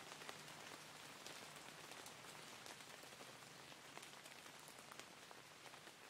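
Faint steady hiss scattered with soft ticks, like light rain falling.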